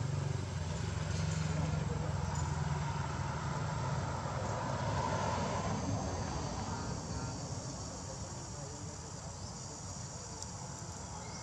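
A motor vehicle's engine running steadily, a low hum that fades away over the second half, over a faint steady insect buzz.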